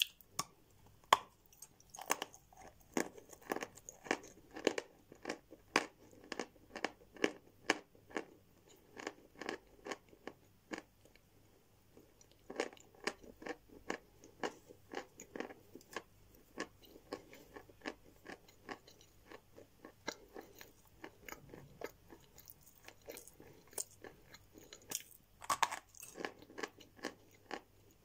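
A person biting a chunk off a block of chalk and chewing it close to the microphone. There is a sharp crunchy bite about a second in, then steady crunching at about two chews a second. The chewing pauses briefly near the middle, and there is another loud crunchy bite near the end.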